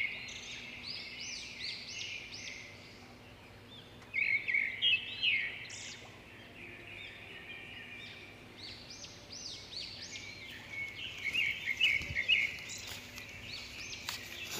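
Small birds chirping in quick runs of short rising-and-falling notes, in bouts that come and go, with a few faint knocks near the end.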